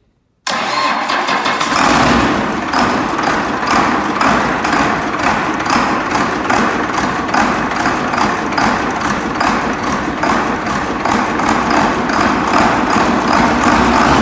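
Cummins 6TA-830 turbocharged six-cylinder diesel in a Case 2366 combine starting after a repair: it comes on suddenly about half a second in, fills out about two seconds in, then runs steadily with a fast, even diesel clatter.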